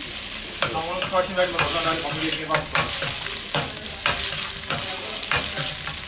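Egg and chicken pieces sizzling in hot oil in a stainless steel wok, while a metal spatula stirs and scrapes against the wok's sides in quick strokes, about two to three a second.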